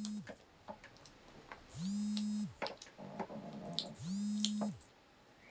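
Clicks and light rustling of a bag's buckles, zipper and strap being handled. A low, steady hum-like tone comes twice, each about a second long, sliding up at the start and down at the end.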